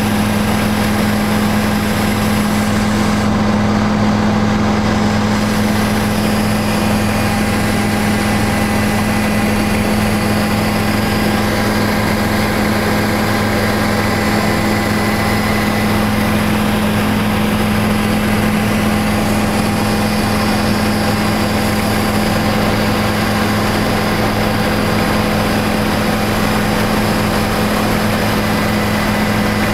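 Helicopter's engine and rotor noise heard inside the cabin in flight: a loud, steady drone with a constant hum.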